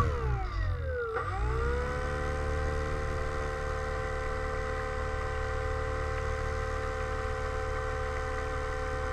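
Motor and propeller of a model DHC-2 Beaver floatplane whining as it taxis on the water. The pitch drops over about the first second, then holds steady, over a low rumble.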